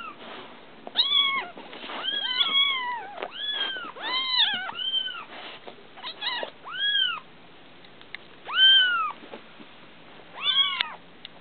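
Newborn foster kittens mewing over and over: about a dozen short, high cries that rise and fall, some in quick runs. The loudest is a longer cry about three-quarters of the way through.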